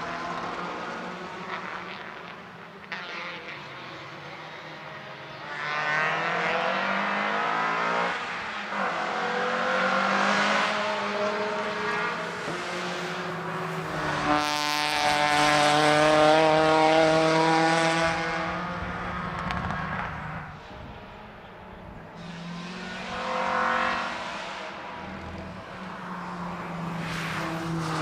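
Racing car engines at full throttle around the circuit, heard from trackside: several cars rise and fade in turn, their pitch climbing and breaking at each gear change. The loudest pass comes about halfway through.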